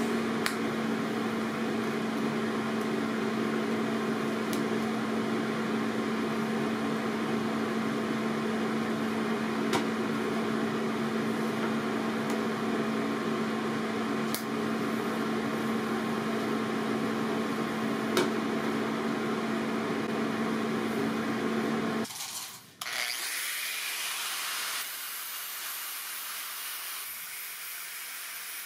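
TIG welder arc burning steadily as filler rod is fed into a joint on a steel tube: a constant electrical buzz with a steady hum. It cuts off abruptly about 22 seconds in, and an angle grinder grinding the welded tube follows as a quieter steady hiss.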